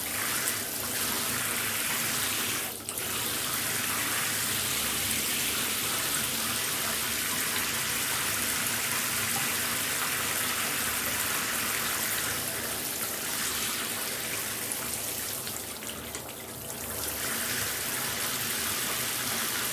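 Shower spray running in a steady hiss, briefly dipping about three seconds in and going softer for a second or so near sixteen seconds before coming back full.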